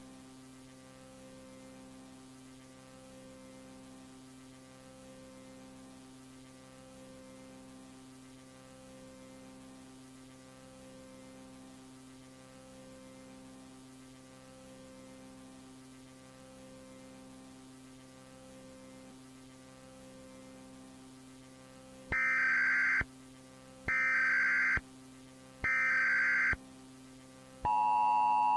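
Low steady electronic hum with a slow regular pulse. Then three loud short data bursts of an Emergency Alert System header, and near the end the steady two-tone EAS attention signal begins.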